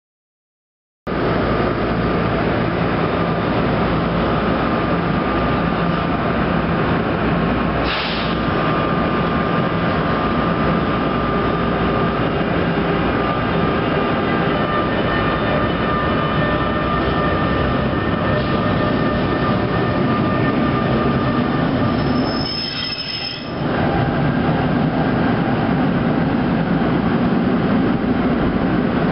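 NJ Transit electric trains running through a station: loud, steady rumble of wheels on rail with a steady electric tone, starting about a second in.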